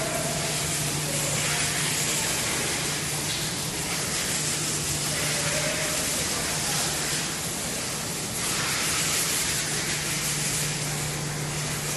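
Cable stranding and sheathing line running: a steady machinery hiss with a constant low hum underneath.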